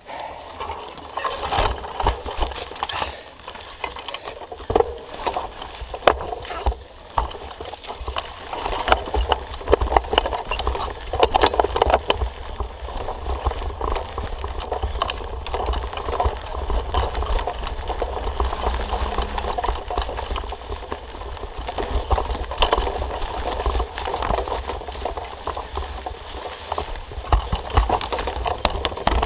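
Mountain bike ridden over a forest trail covered in dry leaves and twigs: continuous tyre crunching with many small knocks and rattles from the bike on the rough ground, over a steady low rumble.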